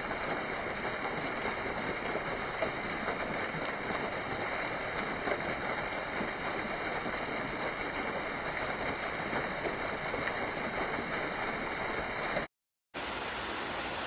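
Small waterfall pouring over rock: a steady, even rush of falling water. It cuts out briefly near the end, and the rush of water resumes straight after.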